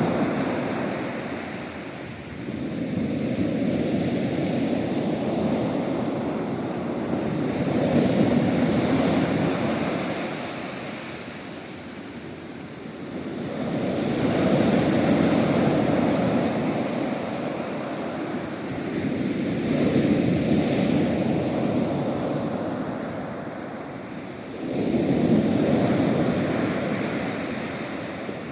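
Sea waves breaking on the shore in a westerly swell. Each wave comes in as a rising rush that fades away again, about five of them in turn.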